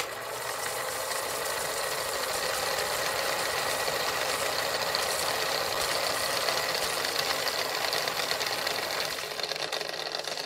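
Film projector running: a steady, fast mechanical clatter with hiss.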